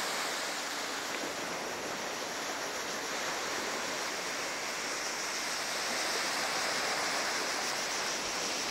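Steady rushing noise of surf breaking on the beach.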